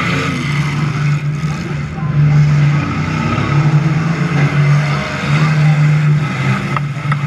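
Demolition derby van's engine running while the van sits still, heard from inside the van as a loud low rumble that wavers unevenly.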